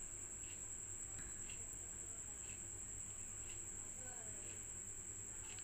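Faint, steady, high-pitched insect trill, with a soft tick about once a second.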